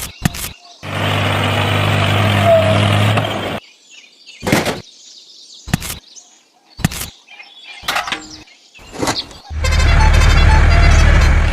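A small machine's motor running steadily in two stretches, each starting and stopping abruptly, the second near the end. Short knocks and scrapes fall between them.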